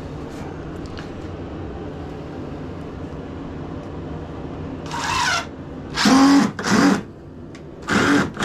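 Cordless drill driving a floor screw in three short bursts about a second apart after a steady low hum, the motor whining up and down each time the trigger is squeezed. The bit isn't gripping the screw, which the crew puts down to the wrong bit.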